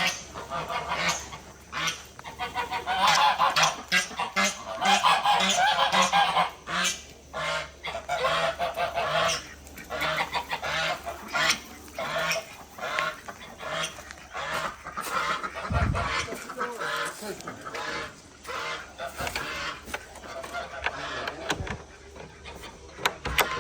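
Farm poultry calling loudly and over and over, many calls overlapping, with a dull thump about two-thirds of the way through.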